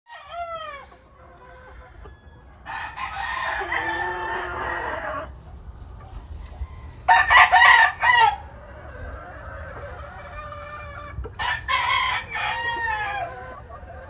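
Gamefowl roosters crowing three times, each crow lasting one to two and a half seconds, the middle one the loudest, with hens clucking between them.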